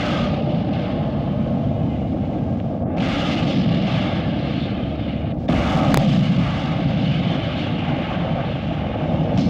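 Battle noise of artillery fire and explosions: a dense, continuous rumble that changes abruptly a few times, with a sharp crack about six seconds in.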